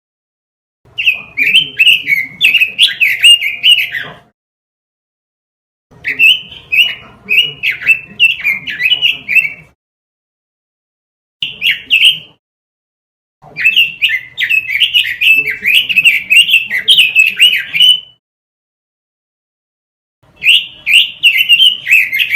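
Red-billed leiothrix (Pekin robin) singing in five bursts of rapid warbling notes, most three to four seconds long with one short burst in the middle. Dead silence lies between the bursts.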